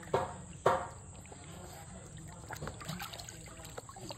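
Water sloshing and trickling in a plastic kiddie pool as two dogs wade and move about in it, with small splashes throughout. Two short vocal sounds come in the first second.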